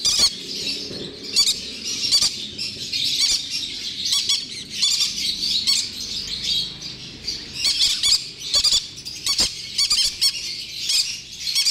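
Several pineapple green-cheeked conure chicks calling continuously in high, overlapping chirps and squawks, with a few sharp clicks among them.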